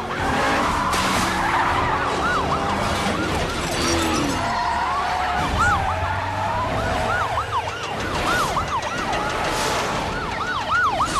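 Several police sirens going at once, each sweeping up and down in pitch about twice a second, over a dense din of car engines and a few bangs.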